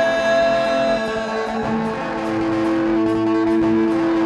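Live rock band playing between sung lines: electric guitar ringing out held chords over drums. A lower note comes in and holds about halfway through, and a cymbal ticks steadily about twice a second.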